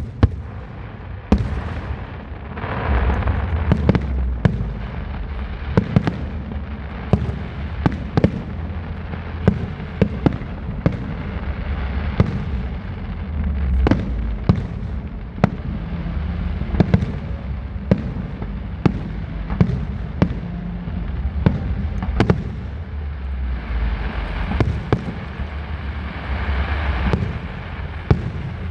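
Aerial fireworks display: shells bursting in an irregular string of sharp bangs, about one or two a second, over a continuous low rumble, with denser stretches of hissing crackle about two seconds in and near the end.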